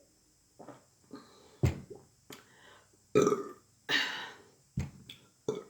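A person burping repeatedly: a run of short burps, with three loud ones in the middle and smaller ones around them.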